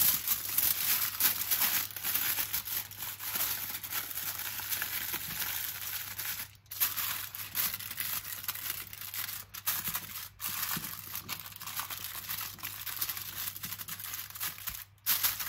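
Aluminium foil crinkling and rustling as it is folded over and tucked in around the edges of a metal roasting tray. The rustling runs on with a few brief pauses, about six and a half, ten and fifteen seconds in.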